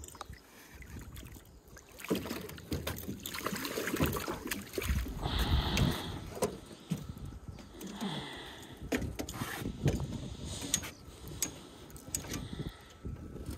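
A hooked carp splashing at the surface beside an aluminum boat as it is reeled in and lifted out of the water, with irregular clicks and knocks of handling against the boat. The loudest splashing comes about five to six seconds in, with more near eight seconds.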